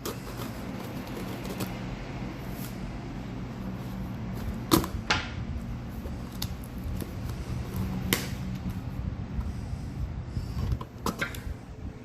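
A parcel being opened by hand: packaging handled with a few sharp clicks and snaps, two close together about five seconds in, one around eight seconds and another near the end, over a steady low hum.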